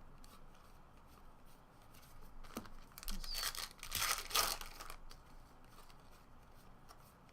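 Foil trading-card pack wrapper crinkling and tearing as it is ripped open, in a few short rustles from about two and a half to five seconds in.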